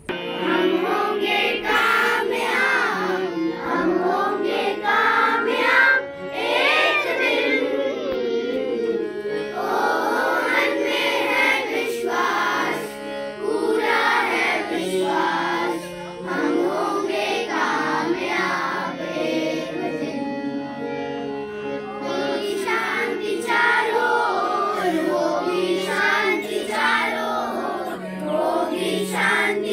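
A group of children singing a song together in unison, phrase after phrase, with brief pauses between phrases.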